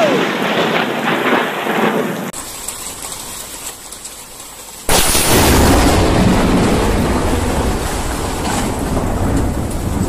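Thunder from a close lightning strike crashing over heavy rain, then after a cut a quieter stretch of rain. About five seconds in, loud storm wind and rain come in suddenly and go on to the end.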